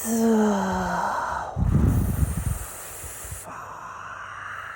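A woman making wordless vocal sounds: a buzzing "zzz" whose pitch slides slowly down over the first second and a half, then a breathy rush of air, then a softer, quieter hiss.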